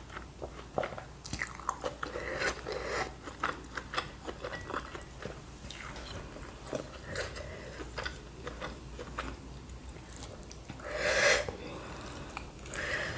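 Close-miked chewing of bakso meatball and noodle soup: a run of wet mouth clicks and smacks, with two louder rushing, hissy sounds near the end.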